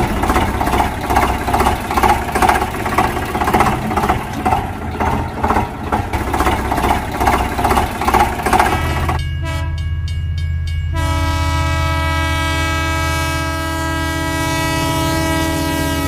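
Train sounds: a rhythmic chugging beat of about three pulses a second, then from about eleven seconds in a long, steady train horn chord.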